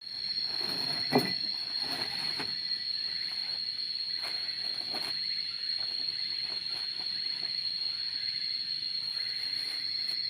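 Steady high-pitched insect drone, crickets or cicadas calling without pause. Scattered short rustles and knocks run over it, with a sharp crack about a second in.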